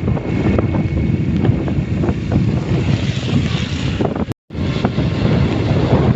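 Heavy wind noise buffeting the microphone of a moving vehicle, with scattered short clicks through it. The sound cuts out briefly about four seconds in.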